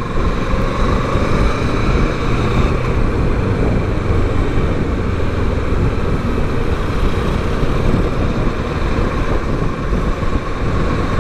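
Kawasaki Versys 650's parallel-twin engine running steadily as the motorcycle rides along a city street, mixed with a steady rush of wind and road noise.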